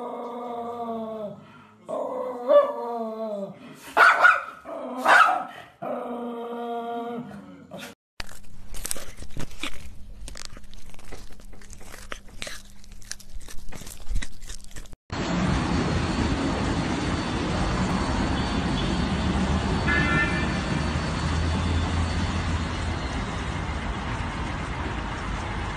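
A golden retriever puppy barking and yipping in pitched, bending calls, the loudest about two and a half, four and five seconds in. After that comes a run of small clicks, as of a cat licking and chewing. From about fifteen seconds in there is the steady rushing noise of an automatic car wash's spinning brush.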